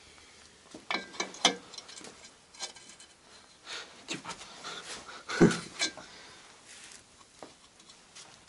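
Scattered short metal knocks and scrapes as a tool is handled in the bore of an IZH Jupiter-4 cast-iron cylinder clamped in a vise. There is a cluster about a second in and another with one louder knock about five and a half seconds in. No drill is running.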